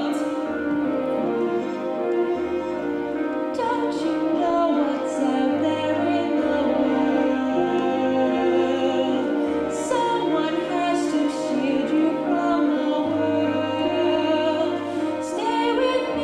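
A woman singing a slow musical-theatre song in long held notes with vibrato, over instrumental accompaniment with held bass notes that change every second or so.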